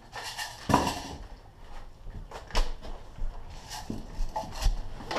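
Irregular knocks and clatter on the wooden planks of a small hut. There are about four sharp strikes, the loudest a little under a second in.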